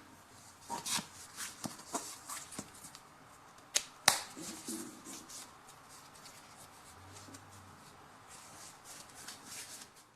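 Handling noise: a run of sharp clicks and taps, the loudest about four seconds in, followed by softer rustling and light knocks.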